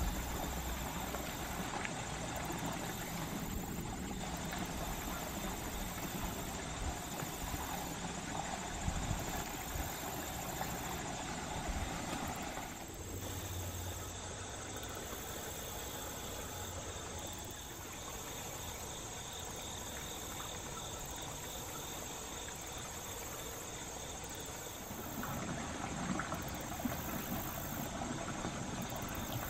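Steady outdoor background noise of flowing water rushing through a concrete channel. A faint, steady high insect drone runs through the middle, and the background changes character about halfway through and again near the end.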